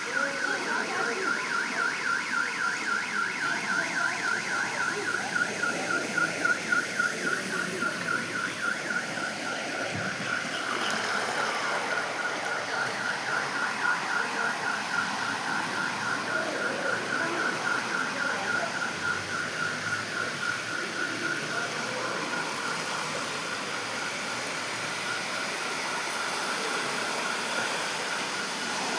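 An electronic alarm, most like a car alarm, sounding one high tone that pulses several times a second without stopping, over a steady rushing noise of floodwater.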